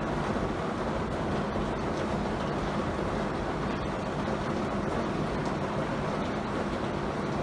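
Heavy rain falling steadily, an even dense hiss with a low steady hum underneath.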